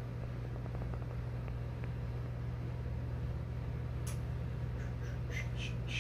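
Steady low hum with even background noise, like a fan or appliance running in a small room, with a sharp faint click about four seconds in and a few faint high ticks near the end.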